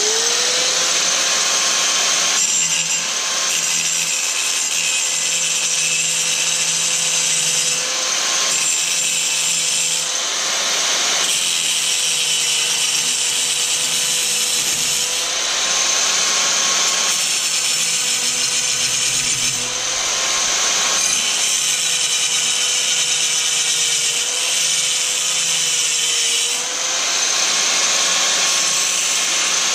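Handheld power tool running at high speed and cutting, its steady whine wavering slightly in pitch. A harsh cutting hiss swells and eases every few seconds as the tool is worked through the material.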